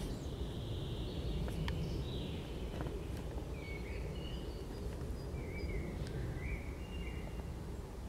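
Forest birds calling faintly with short high chirps over a steady low rumble, with a few sharp clicks.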